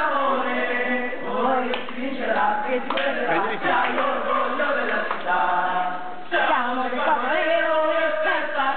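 Many young children singing together, with a short break about six seconds in.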